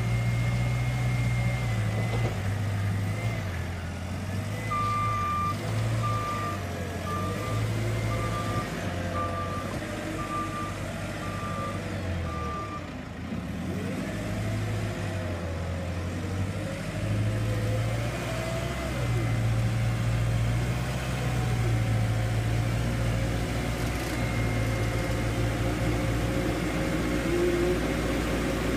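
JCB 531-70 telehandler's diesel engine running under load as it digs into a manure heap with its grab, its pitch rising and falling with the work. Several seconds in, its reversing alarm beeps about once a second, eight times.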